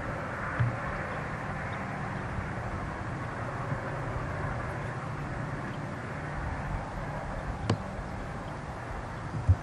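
Distant Union Pacific train with steam locomotive 844 and DDA40X diesel 6936, running away from the microphone: a steady low drone under a rushing noise. A few brief sharp knocks cut through, one about a second in and others near the end.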